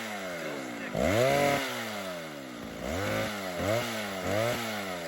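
Vintage Stihl 08S two-stroke chainsaw revved four times in quick blips, each rising fast and sagging back toward idle, as the throttle trigger is worked. The trigger is sticking.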